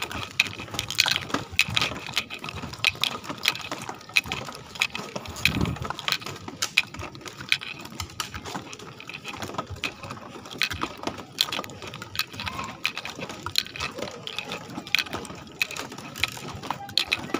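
Footsteps in flip-flops on a bamboo-slat boardwalk: the slats clack and click underfoot, in an irregular run of several knocks a second.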